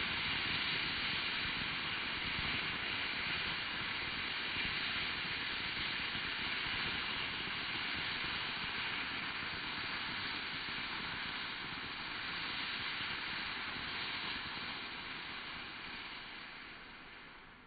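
Small solid-fuel rocket motor firing on a test stand: a steady rushing hiss of exhaust that fades away over the last couple of seconds as the burn dies down.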